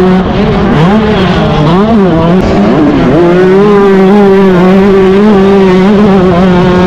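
Yamaha YZ125 single-cylinder two-stroke motocross engine heard from onboard at racing revs. The pitch drops and climbs back three times in the first three seconds as the throttle is shut and reopened, then holds high and steady.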